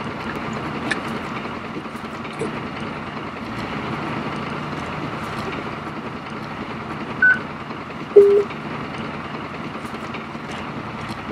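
Two short electronic beeps from a Sepura TETRA handheld radio as its keypad is pressed: a high beep about seven seconds in and a lower, louder one about a second later, over a steady vehicle engine hum.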